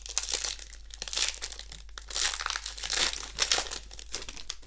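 Foil Magic: The Gathering booster pack wrapper crinkling as it is handled and torn open, in several separate rustles through the first four seconds.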